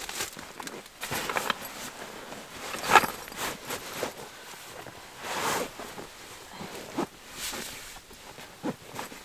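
Camping gear being handled and stuffed into a waxed canvas backpack: irregular rustling and scraping of fabric, with one sharp knock about three seconds in.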